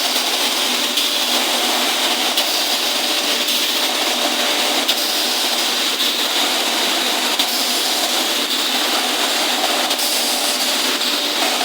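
Steady loud rushing roar of a glass factory furnace, with a few faint clicks.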